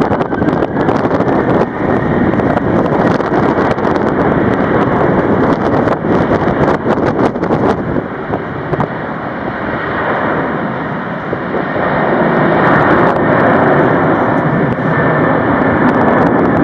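Strong wind buffeting the microphone: a loud, continuous rushing with crackling gusts, swelling near the end.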